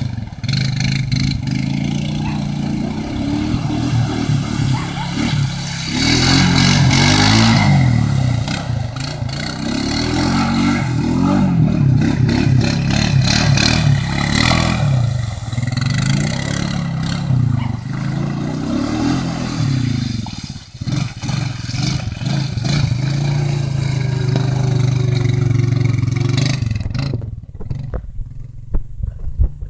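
Honda FourTrax 420 ATV engine revving up and down repeatedly as the quad ploughs through shallow water, with the hiss and splash of spray thrown up by the wheels. Near the end the splashing stops and only the engine is left, running at low revs.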